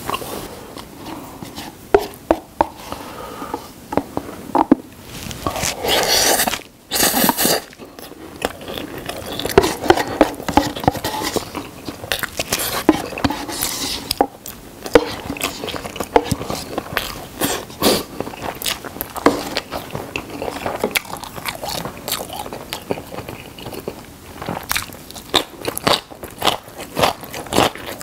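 Close-miked eating of spicy stir-fried cup noodles: wet chewing and smacking with many short clicks, and a long, loud slurp about five seconds in that breaks off briefly and resumes. Later come scrapes and taps of wooden chopsticks inside the paper noodle cup.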